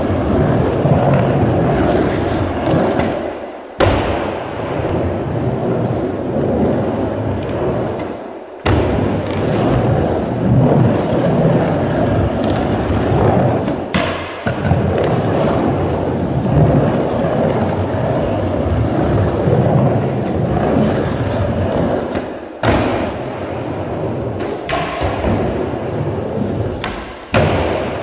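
Skateboard wheels rolling on a concrete bowl, a continuous rumble. It is broken several times by sudden loud knocks.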